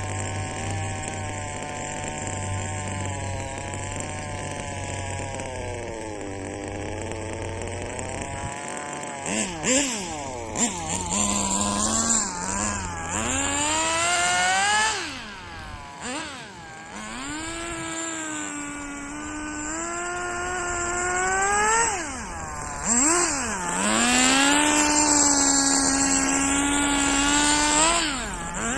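Small engine of a radio-controlled rear-wheel-drive drift car running. For the first several seconds it holds fairly steady, then from about nine seconds in it revs up and drops back repeatedly.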